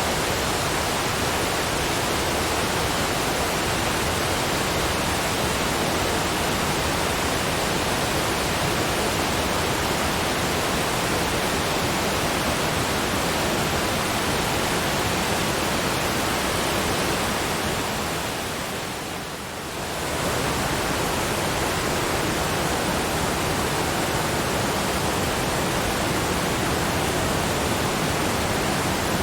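Steady rushing of a waterfall, an even hiss-like roar. About two-thirds of the way through it dips briefly and swells back to the same level.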